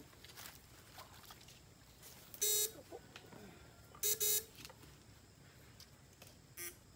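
Electrofishing rig buzzing in short loud bursts as current is switched through the two probes in the creek water to stun eels: one burst about two and a half seconds in, then a quick pair about four seconds in.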